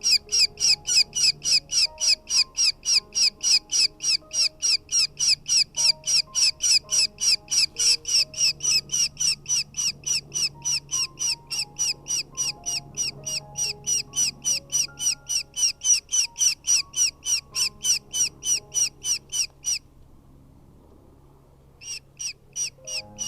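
Falcon chicks in the nest giving shrill, rapidly repeated begging calls, about three or four a second, as they are fed. The calls break off for a couple of seconds near the end and then resume, over faint background music.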